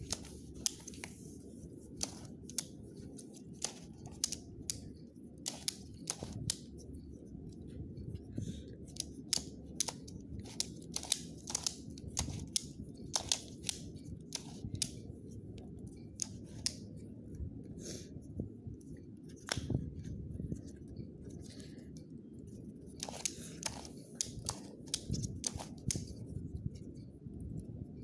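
QiYi Skewb puzzle being turned by hand: irregular plastic clicks and clacks as its corner layers twist and snap into place, coming in quick runs.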